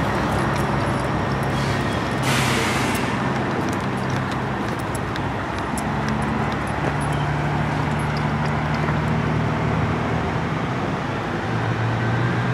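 Steady freeway traffic noise with the low hum of engines running under it. A brief louder hiss rises about two seconds in.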